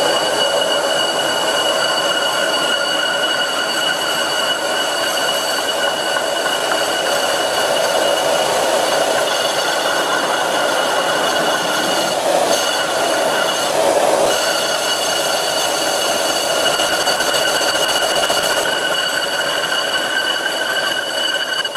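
Vintage Karger bench lathe facing a rusty cast iron brake disc with a carbide insert, the dust collector running alongside: a steady cutting and blower noise with a high whine that breaks off briefly twice a little past halfway.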